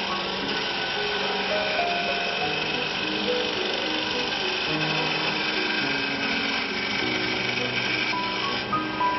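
Background music with a slow melody, over the steady high whine of a CNC wood lathe's spindles and twin cutters turning wood.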